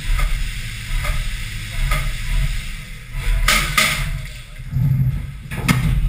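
Haas VF-3SS CNC vertical mill running on aluminum, heard from inside the enclosure: flood coolant hisses steadily over a pulsing low machine rumble as the spindle lifts off the part. Short, louder bursts of noise come about halfway through and again near the end.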